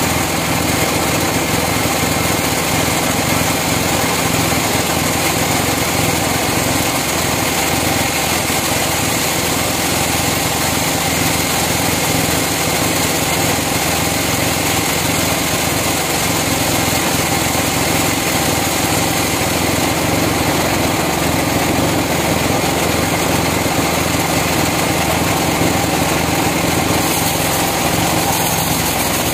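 Large band sawmill running steadily, its blade cutting lengthwise through a big hardwood log.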